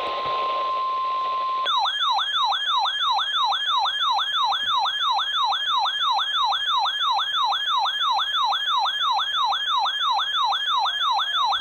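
Weather radio alert tone that signals a severe thunderstorm warning. A steady single-pitch tone sounds for under two seconds, then gives way to a siren-like warble that sweeps down in pitch about three times a second.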